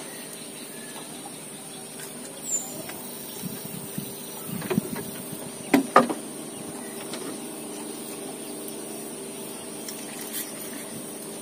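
Steady engine hum with several even tones, with a few short knocks and clicks about five to six seconds in.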